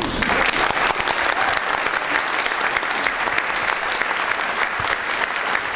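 Audience applauding: many hands clapping together, breaking out suddenly and holding steady.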